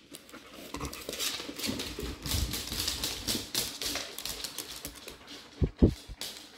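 A dog lapping water from a bowl: a quick, uneven run of wet laps. Two dull thumps come a little before the end.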